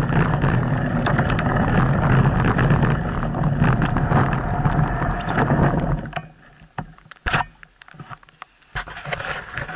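Mountain bike ridden along a wet, muddy dirt track: a steady rushing noise of the tyres rolling and wind on the microphone, with rattling. The noise drops away about six seconds in, leaving scattered clicks and knocks from the bike.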